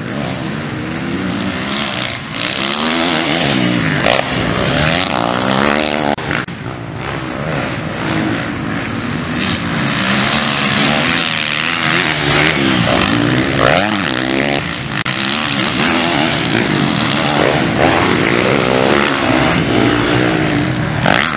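Motocross bike engines racing on a dirt track, several of them revving hard, their pitch climbing and dropping again and again as the riders accelerate, shift and back off through the turns and jumps.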